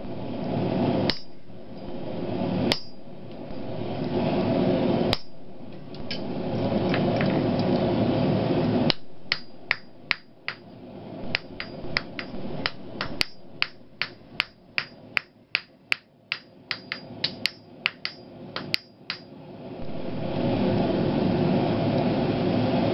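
Hand hammer forging a 12 mm round steel bar on an anvil. A few single blows come over a steady rushing noise, then a run of about thirty ringing blows at roughly three a second, and then the rushing noise comes back.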